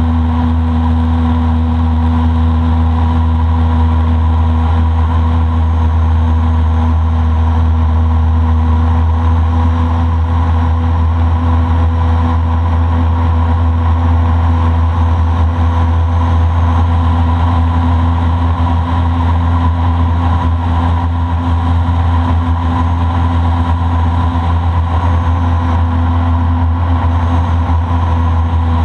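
A boat's motor running at a steady, unchanging speed: a loud, low drone.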